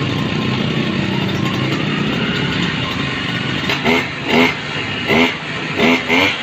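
Small two-stroke grass cutter engine running on test after carburetor work: a steady hum for the first few seconds, then a series of short, quick throttle blips, each a rising rev, repeated about once or twice a second.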